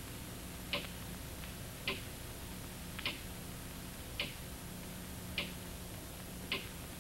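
Clock ticking slowly and evenly, about one tick a second, six ticks in all, over a low steady hum.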